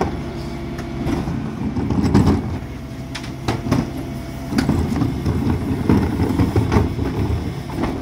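Dennis Elite 6 refuse truck's diesel engine running steadily at the kerb, with scattered clunks and knocks as emptied plastic wheelie bins are taken off its rear bin lift.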